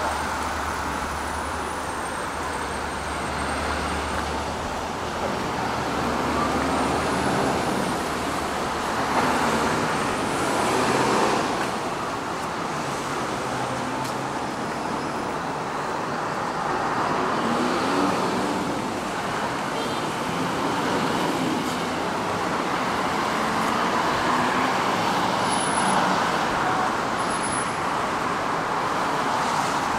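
City road traffic: a steady wash of cars and buses passing, swelling louder as nearer vehicles go by.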